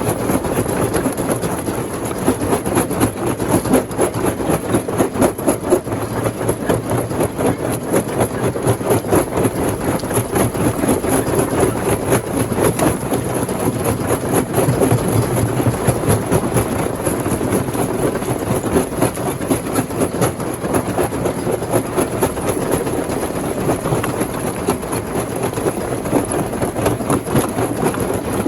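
Rock crusher machine running and breaking stones: a loud, continuous dense clatter of rock knocking against rock and steel.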